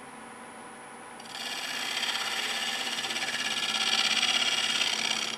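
Turning gouge cutting a spinning wood blank on a lathe: a steady rasping hiss with a fast flutter that starts about a second in and grows louder near the end.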